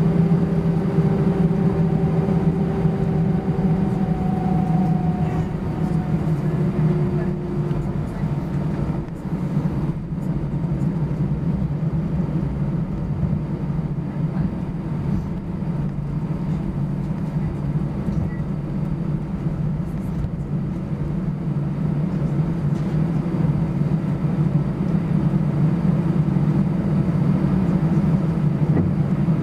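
Cabin noise of an Airbus A320-214 taxiing, heard from inside over the wing: the CFM56-5B engines at taxi power give a steady low hum. A pair of faint higher tones fades out within the first several seconds.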